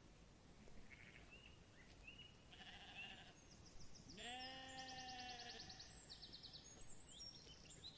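Faint sheep bleating: a few short calls, then one longer, clearer bleat about four seconds in that lasts about a second and a half.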